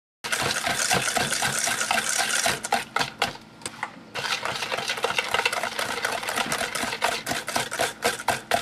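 Wire balloon whisk beating thick cake batter in a stainless steel mixing bowl: fast, rhythmic clicking and scraping of the wires against the metal, dropping off briefly about three and a half seconds in and then starting again.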